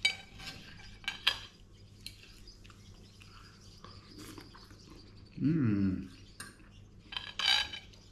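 Knife and fork clinking and scraping on a ceramic plate while eating, in scattered sharp clicks. About halfway through there is a short, low hum from the eater that falls in pitch.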